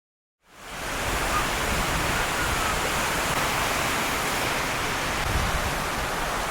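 Ocean surf: a steady wash of noise that fades in about half a second in and holds at an even level.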